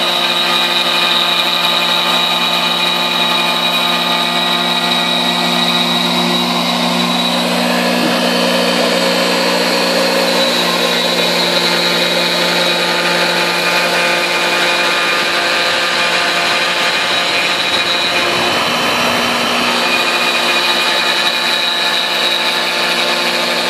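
Porter-Cable router spindle on a CNC machine running at a steady high-speed whine while its bit surfaces a red oak tree cookie, with continuous cutting noise and a rougher stretch about two-thirds of the way through.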